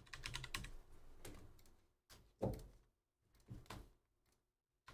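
Typing on a computer keyboard: a quick run of key clicks, then a few separate, heavier taps.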